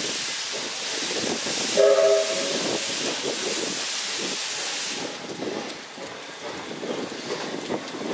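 Steam locomotive hissing loudly as it moves off in a cloud of its own steam, with one short blast of its steam whistle about two seconds in. The hiss cuts off about five seconds in, leaving the rougher running noise of the engine on the rails.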